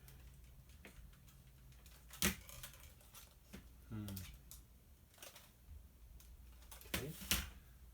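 Scattered clicks and taps of small plastic and metal parts and a screwdriver being handled while a CD changer is taken apart, with two sharper clicks, one about two seconds in and one near the end, over a steady low hum.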